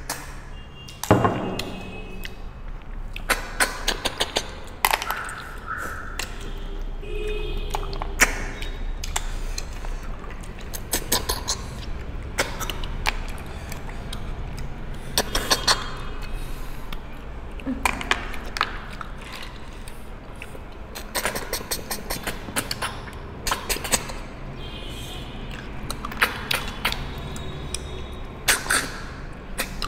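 Cooked snails being eaten by hand: snail shells clicking against ceramic bowls and against each other, some with a short ring, along with short sucking slurps as the meat is sucked out of the shells, in irregular scattered bursts.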